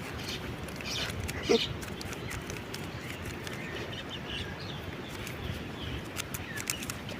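Rubik's cube being twisted by hand: a run of quick, irregular plastic clicks. About one and a half seconds in, a short animal call is the loudest sound, and faint chirps come and go.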